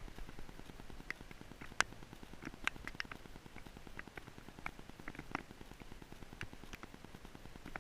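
Scattered light taps and clicks at an uneven pace, a few a second, over a faint low rumble.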